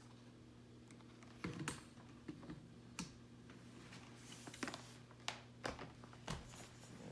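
Faint, irregular clicks and light knocks of hard objects being handled, over a faint steady low hum; the vacuum motor is not running.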